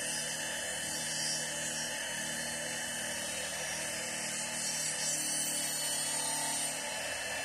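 CNC wood router's spindle-driven 120 mm saw blade spinning at high speed and cutting through hardwood, a steady high-pitched whine mixed with the hiss of the cut. A lower steady hum sits underneath.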